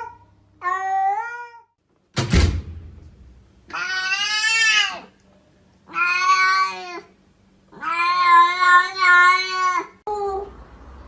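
A cat meowing: one short meow, a thud about two seconds in, then three long, drawn-out meows, the last the longest.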